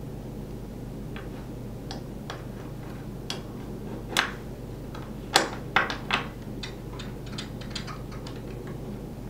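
Metal clicks and taps as a spring-loaded stud anchor fitting with a steel ring is pushed into and worked along an aluminium cargo track, with a cluster of sharper, louder clicks around the middle.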